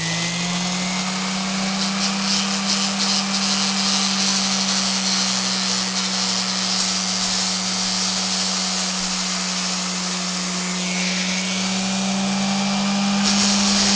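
Orbital sander with 40-grit paper running steadily, grinding old glue and spider remains off the metal spider ring of a subwoofer basket. The abrasive grinding gets louder and harsher near the end.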